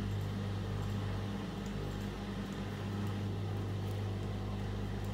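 Steady low electrical hum, with a few faint small clicks from a waist trainer's hook-and-eye fasteners being undone.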